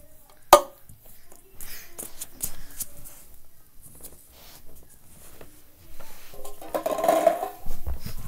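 Ping pong balls and red plastic cups being handled on carpet: one sharp click with a short ring about half a second in, then scattered light taps, and a brief pitched sound near the end.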